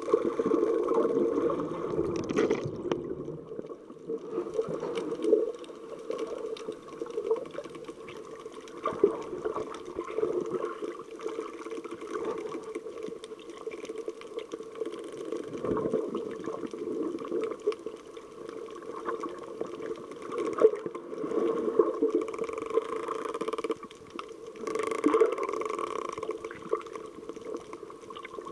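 Muffled water noise heard underwater: sloshing and gurgling that swells and fades unevenly, with scattered sharp clicks.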